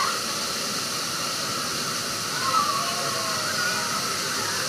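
Steady hiss of water pouring and spraying from a water-park waterfall or spray feature.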